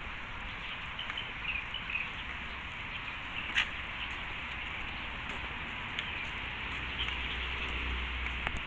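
Steady outdoor background hiss with a low rumble underneath and a few faint short high chirps. One sharp click comes about three and a half seconds in.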